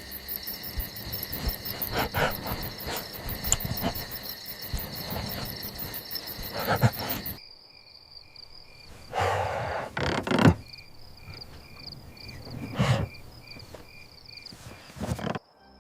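Crickets chirring in a steady, fast pulsing rhythm. About seven seconds in the sound cuts abruptly to quieter, slower chirping, broken by a few short louder noises.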